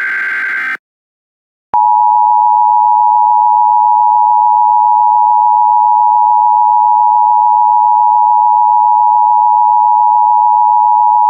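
The end of an Emergency Alert System SAME header burst, a harsh buzzing data screech, followed after a short gap by the loud, steady two-tone EAS attention signal, which starts about two seconds in. The tones announce that an emergency warning message is about to follow.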